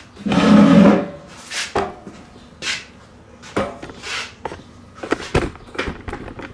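Handling noise from a camera being moved and set down: a loud rustle and thump about half a second in, then a string of irregular knocks, scrapes and rustles.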